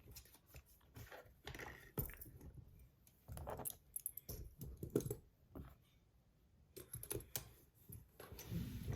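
Scattered clicks, taps and light clinks of small fidget toys being handled and put away, with a short quiet gap about two-thirds of the way through.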